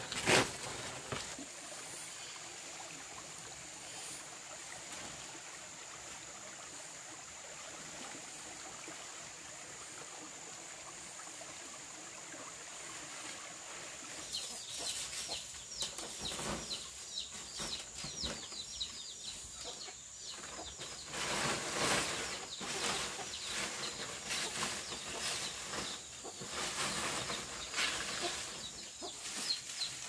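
Farmyard chickens: short high chirps and calls with rustling and scuffling through the second half, over a steady high-pitched whine, and a sharp knock right at the start.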